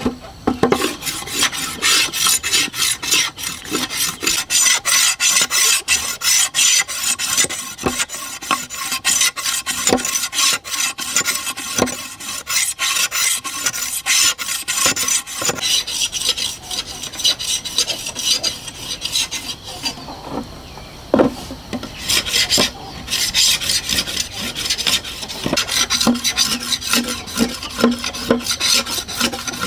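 Machete blade scraping the green outer skin of a fresh bamboo pole in quick, repeated rasping strokes, with a short lull about two-thirds of the way through.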